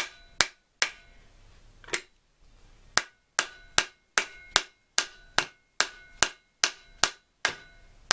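Mallet blows driving parts home into a T-90 transmission case, each a sharp knock with a brief metallic ring. A few strikes come first, then after a short pause a steady run of about two and a half taps a second.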